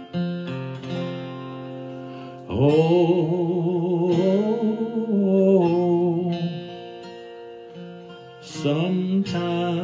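A man singing a slow African-American spiritual to strummed acoustic guitar. About two and a half seconds in he sings a long, wavering note lasting some four seconds, then the guitar chords ring on alone until the voice comes back near the end.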